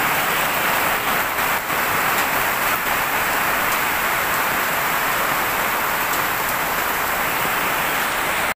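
Heavy rain falling steadily on wet pavement and grass, a dense even hiss of drops.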